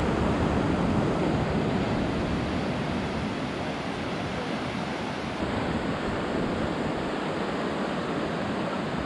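Atlantic surf breaking and washing over a rocky shore, a steady rush of waves.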